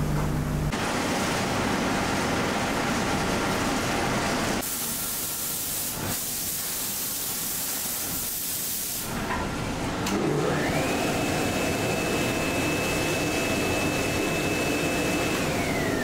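Steady workshop machine noise with a loud hiss through the middle stretch. About ten seconds in, a motor whine rises, holds at one pitch, and falls away near the end.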